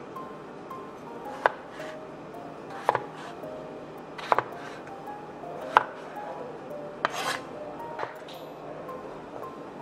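Large broad-bladed kitchen knife chopping a peeled raw potato on a wooden cutting board. There are about six single chops, each a sharp knock of the blade through the potato onto the board, roughly one every second and a half.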